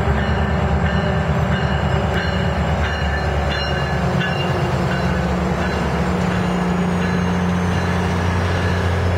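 MARC commuter train pulling into a station stop: the diesel locomotive's engine runs loud and low as it passes, then the passenger cars roll by with steady wheel-and-rail noise.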